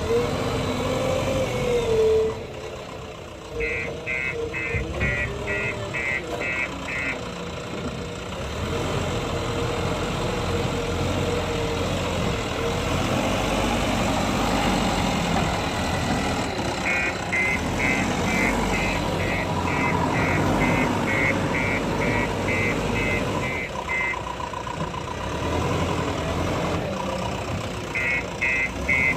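Heavy diesel construction machinery running steadily, with a reversing alarm beeping rapidly, about two beeps a second, in three spells: a few seconds in, again for several seconds mid-way, and near the end.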